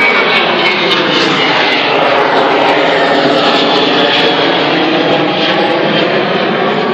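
Jet airliner's engines running loud and steady close by, with faint sliding whine tones over a dense rush of engine noise.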